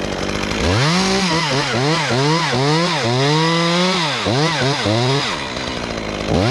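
Two-stroke top-handle chainsaw revving up about a second in and cutting into a tree limb, its engine speed dipping and recovering again and again as the chain bites under load, then easing off about five seconds in.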